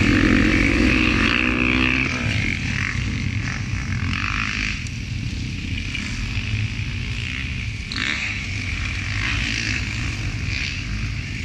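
Motocross dirt bikes running on the track: a close bike revs hard as it rides away, loud at first and fading after about two seconds. More distant bikes then rev up and back off several times as they go round the circuit.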